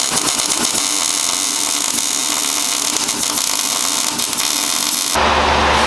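MIG welding arc crackling and sizzling steadily as the pickup tube is welded onto an engine oil pump, cutting off abruptly about five seconds in.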